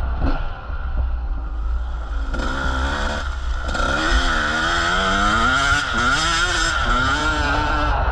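Motocross bike engine revving, its pitch rising and falling repeatedly with the throttle, strongest over the second half.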